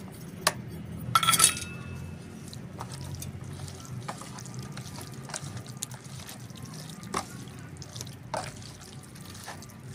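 Wet squelching and dripping as raw chicken is worked through a thick yogurt-and-spice marinade in a bowl, with a brief clatter about a second in.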